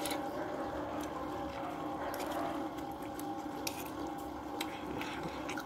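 A person chewing and slurping soft rice noodles, with a few sharp wet mouth clicks over a steady low hum.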